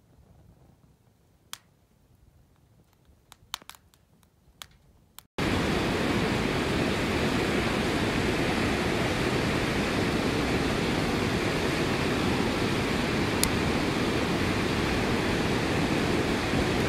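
Wood fire burning in a perforated washing-machine-drum fire bucket: first faint, with a few sharp crackling snaps, then, from about five seconds in, a loud steady rushing fire with an occasional pop.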